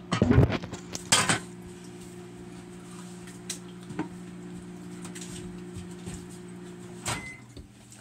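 Kitchen clatter: a couple of loud knocks and clinks of dishes and utensils, then a few lighter clicks, over a steady kitchen appliance hum that cuts off about seven seconds in.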